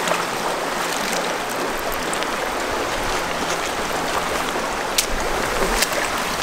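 Shallow river water running steadily over rocks, with a couple of brief sharp clicks about five seconds in and near the end.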